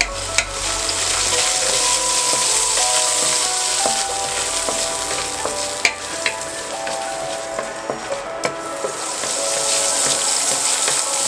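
Garlic cloves sizzling in hot vegetable oil in a stainless steel pan while a wooden spatula stirs them, with a few sharp taps of the spatula against the pan.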